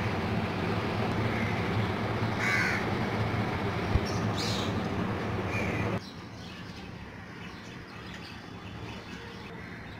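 Steady background hum with a crow cawing two or three times in the first half, and a single sharp click about four seconds in. The hum drops away suddenly about six seconds in, leaving a quieter background.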